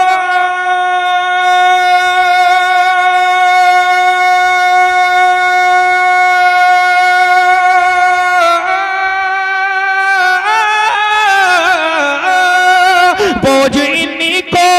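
A man singing a naat without accompaniment. He holds one long steady note for about eight seconds, then breaks into wavering runs that fall in pitch, and starts the next phrase near the end.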